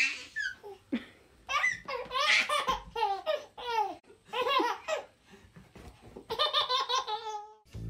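A toddler laughing in several bouts of high-pitched giggling and squealing laughter, with short pauses between them.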